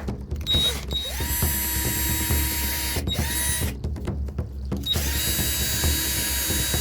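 Power drill boring pilot holes: the motor spins up to a steady whine about half a second in and runs for about two and a half seconds, gives a short burst, then starts a second run near the end.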